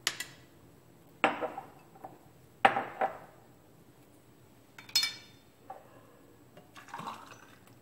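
Glasses and a plastic blender cup knocked and set down on a kitchen counter: about six separate sharp knocks and clinks, the one about five seconds in ringing like glass.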